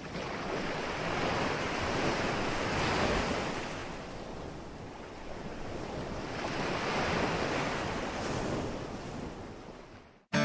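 Ocean surf: small waves breaking and washing up a sandy beach, rising and falling twice. It fades out, and an acoustic guitar starts at the very end.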